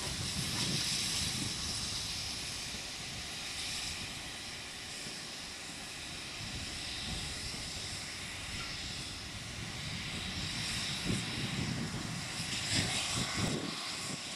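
GWR 2800 class 2-8-0 steam locomotive working a train of coaches away, with a steady rush of hissing steam and exhaust. The hiss is strongest at first, and heavier rumbling pulses come near the end.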